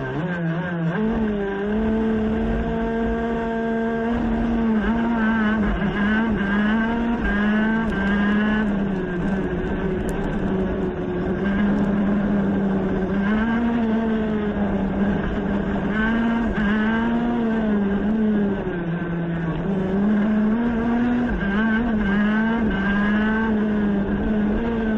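Racing kart engine heard from onboard as the kart pulls away from the grid and accelerates, its pitch climbing and dropping back again and again as it revs through the gears and lifts for corners.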